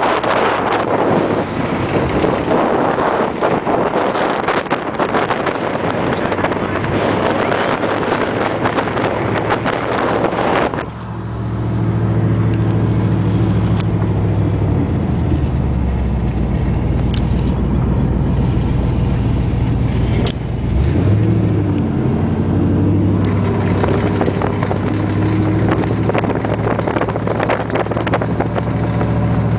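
Wind rushing over the microphone of a camera held outside a moving car, cutting off about eleven seconds in. From inside the car's cabin, its engine then drones steadily at parade-lap speed, dipping briefly and picking up again about twenty seconds in.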